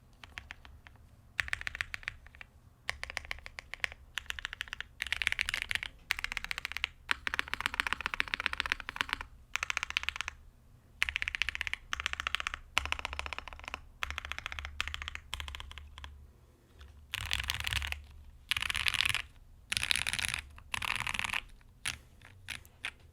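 Typing on a mechanical keyboard with Gateron Black Ink linear switches (spring-swapped to 63.5 g) on a POM plate, in fast runs of keystrokes with short pauses between them.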